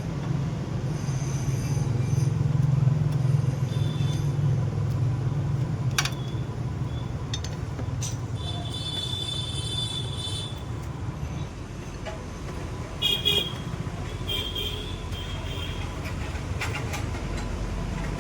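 A low, steady rumble of a large vehicle running, loudest in the first half, with a few sharp clicks and three spells of high-pitched metallic squealing, the first about halfway through.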